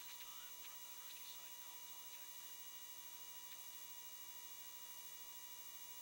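Steady electrical hum made of many flat tones over faint hiss. There are a few faint, brief wavering sounds in the first second or so.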